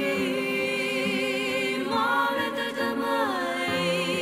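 A woman singing long held notes with vibrato through a microphone over a steady instrumental backing, the melody sliding down to a lower note about three seconds in.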